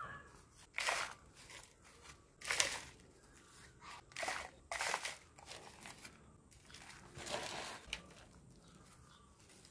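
Potting soil mix being dropped by the handful and spread into a plastic seedling tray, giving about five short, gritty rustles.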